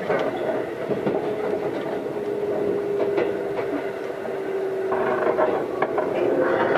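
Keisei AE100 series limited-express car running, heard from inside the passenger compartment: a steady rumble of wheels and running gear, with a tone that slowly falls in pitch. The rattle grows louder about five seconds in.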